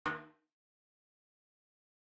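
A single short pitched musical hit right at the start, dying away within about a quarter of a second, then silence.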